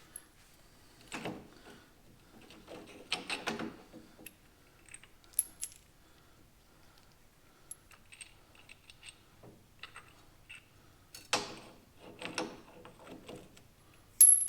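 Bolts and small metal hardware clinking and rattling in irregular bursts, with a few short, sharp metallic rings.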